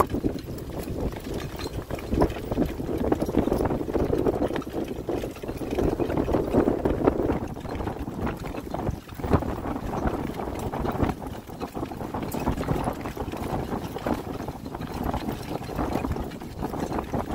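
Two Shetland ponies pulling a cart at a steady pace on a gravel track: hooves and cart wheels crunching on the gravel as a continuous clatter of small clicks.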